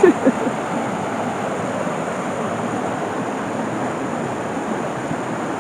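Small stream and little waterfall rushing over rocks: a steady, even rush of water.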